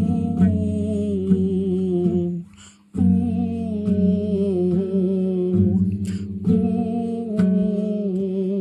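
Music from a comic song's instrumental break: a wordless, hum-like melody over guitar accompaniment, dropping out briefly about two and a half seconds in.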